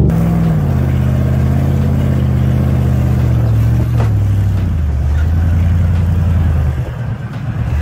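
Toyota Land Cruiser's engine running under load as the 4x4 drives through soft sand. Its note drops in steps about half a second in and again near four seconds, and it eases briefly near the end.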